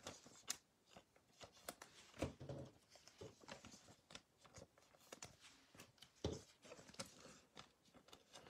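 Faint, scattered light clicks and soft rustles of glossy trading cards being handled and set down on a table.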